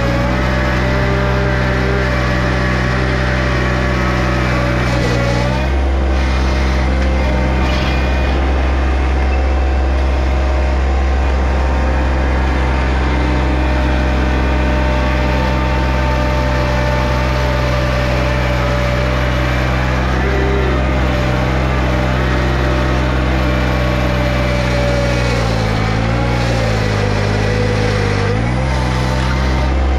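John Deere 1025R compact tractor's three-cylinder diesel engine running steadily. Its pitch dips briefly near the end and then comes back up.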